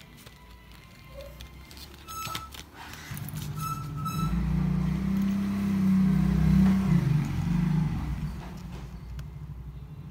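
A motor vehicle passing by. Its low engine rumble swells from about three seconds in, is loudest around six to seven seconds, then fades away. A few light clicks and clinks come before it, about two to four seconds in.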